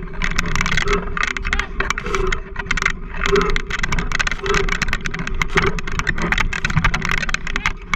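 A dog-drawn wheeled rig rolling fast over a rough dirt trail: the frame and fittings rattle and clatter over the bumps in a rapid stream of knocks, over the crunch of tyres on dirt and a steady low whine.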